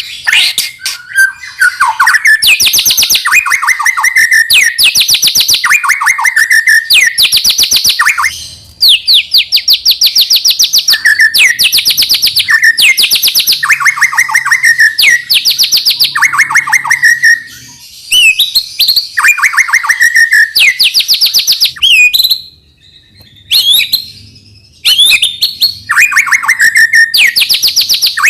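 White-rumped shama singing loudly: one fast trilled phrase after another, each a rapid run of high notes about a second long, with brief pauses about two-thirds of the way through.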